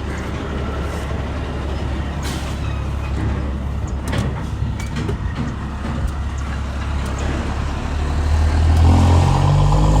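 A vehicle engine running steadily with a low rumble that grows louder near the end, with a few short clicks along the way.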